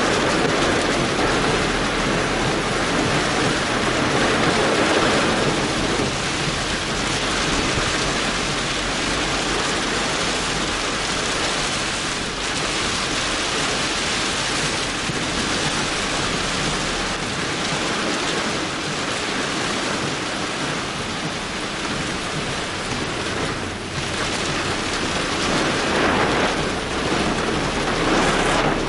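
Heavy rain pelting a car's windscreen and body, heard from inside the cabin as a steady, loud hiss.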